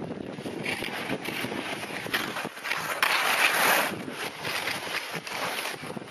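Skis hissing over snow on a downhill run, mixed with wind rushing over the microphone; the hiss swells louder for about a second just past the midpoint.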